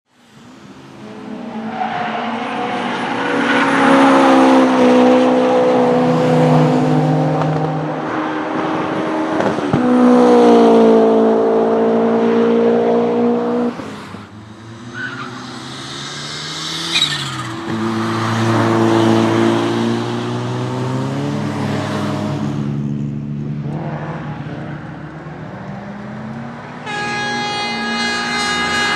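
Cars driven hard on a race track, engines revving up and dropping back through gear changes as they pass.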